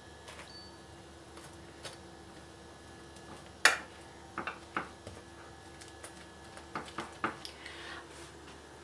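A metal cake server tapping and scraping against a glass baking dish while spreading a thick chocolate cream mixture. The sound is a scatter of light clicks over a quiet background, the sharpest about three and a half seconds in.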